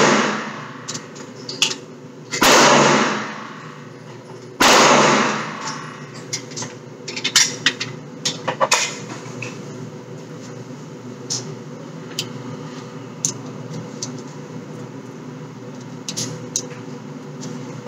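Gunshots echoing in an indoor range: two loud shots about two seconds apart near the start, then scattered fainter cracks and clicks. A steady ventilation hum runs underneath.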